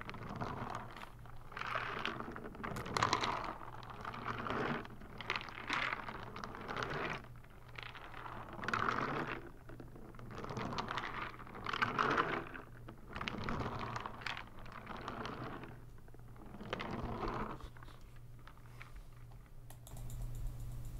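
Contents shifting inside a plastic bottle as it is tilted back and forth, a rustling, pattering rush with each tilt, about a dozen times, stopping shortly before the end.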